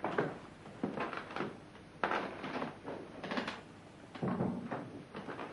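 A series of irregular knocks and thuds, each dying away quickly, spaced about half a second to a second apart.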